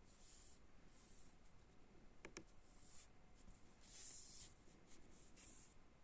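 Near silence: faint rustling and scratching, with two light clicks about two seconds in, over quiet room tone.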